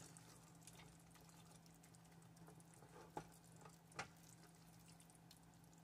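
Near silence: a thick taro-stolon and prawn curry simmering faintly in a nonstick frying pan on low-to-medium heat, with tiny scattered crackles, and two light taps of a wooden spatula on the pan about three and four seconds in, over a steady low hum.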